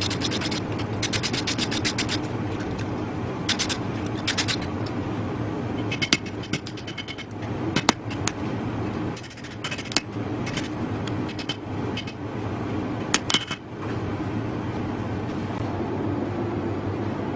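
Steady hum of workshop forging equipment, with light metal clinks and taps over it: a quick rattle of about ten taps a second near the start, then scattered single clinks, some ringing briefly.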